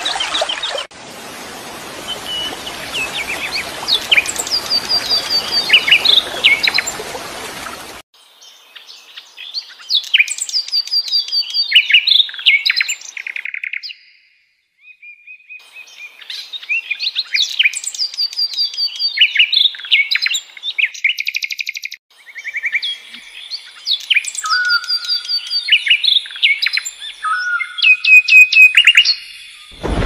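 Songbirds chirping and singing in quick, repeated short phrases. For about the first eight seconds a rushing stream runs underneath; it cuts off abruptly, and the birdsong carries on alone, with a brief pause about halfway through.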